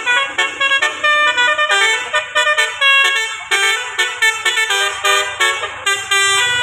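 Bus's telolet 'basuri' musical air horn playing a fast tune of short notes, several tones sounding together on each note.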